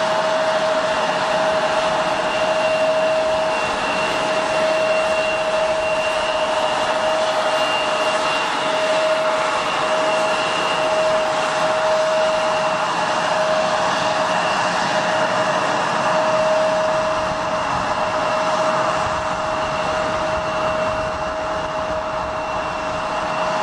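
Jet airliner engines running: a steady rushing noise with two held whining tones, one middling and one high.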